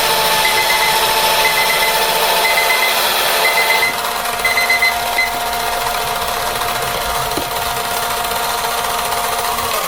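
Let's Resin 4-in-1 electric sanding and polishing machine running steadily while sanding a resin piece. For about the first five seconds a digital kitchen timer beeps about once a second over it, signalling that the timed sanding interval is up.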